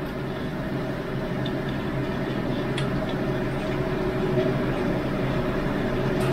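A large pot of water at a full boil over a gas burner: a steady rushing roar with a low hum under it, growing slightly louder.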